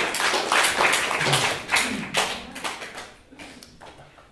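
Applause from a small audience, a dense patter of hand claps that dies away about three seconds in.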